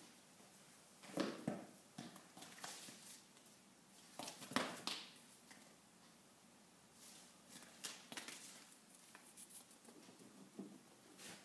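Two small dogs playing on a tiled floor: quiet, scattered patter and scrabbling of paws and claws on the tiles, with a few louder scuffles, the loudest about a second in and about halfway through.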